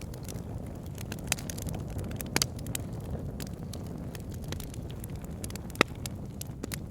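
Wood fire burning in a fireplace: a steady low rumble of flames with scattered crackles and pops from the logs, one sharp pop louder than the rest near the end.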